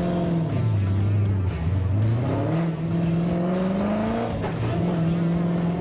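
The V8 engine of a 930-horsepower Ford Mustang drift car revving hard as it drifts. The revs drop about half a second in, climb again from about two and a half seconds, dip briefly just past four seconds and pick up again.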